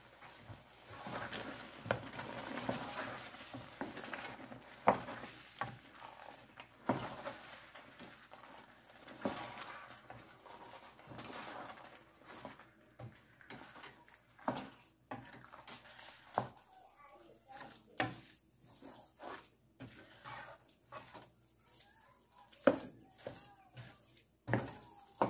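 Wooden spatula stirring and folding rice through stew in a nonstick pan: soft scraping of rice, with repeated sharp knocks of the spatula against the pan.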